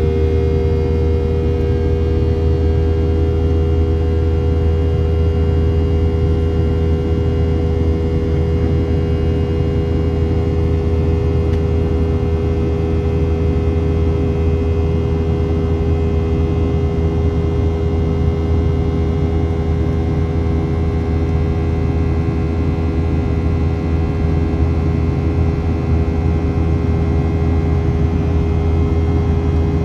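Steady cabin drone inside a Boeing 737-700, its CFM56-7 jet engines running at an even setting: a low rumble under two steady whining tones, unchanging throughout.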